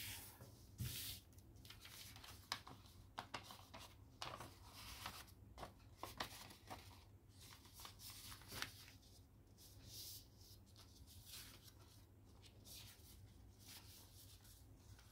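A sheet of origami paper being handled, folded and creased by hand: faint rustling with crisp crackles and clicks, busiest in the first eight or nine seconds and sparser after.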